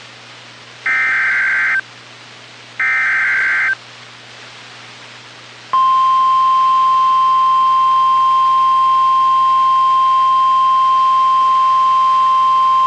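Emergency Alert System SAME header bursts on NOAA Weather Radio: two roughly one-second squawks of digital data about a second apart, then the steady 1050 Hz weather-radio warning alarm tone begins about six seconds in and holds. Together they mark the start of a new warning broadcast, here a tornado warning.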